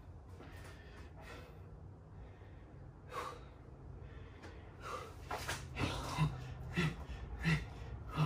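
A man breathing hard and gasping from the exertion of burpees with push-ups. From about two-thirds of the way in, the breaths turn into short, sharp exhales, about one every two-thirds of a second.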